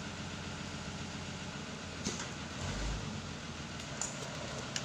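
Steady idling engine hum, with a few short scrapes and rustles as a taped cardboard box is cut and its flaps pulled open, and a low thump about three seconds in.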